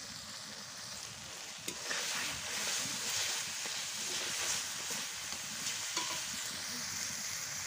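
Metal spatula stirring and scraping a thick spice paste in a stainless-steel kadai, the paste sizzling in oil as it is fried down (kosha) until the oil separates.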